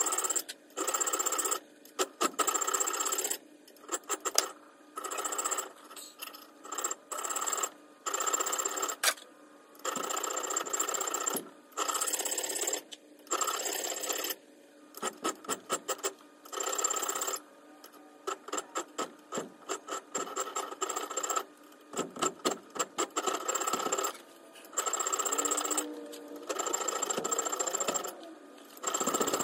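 Small high-speed handheld power tool grinding gut hooks into a knife blank clamped in a vise. It runs in short bursts of about a second with a steady high whine, stopping and starting over and over, with some quick stuttering touches in between.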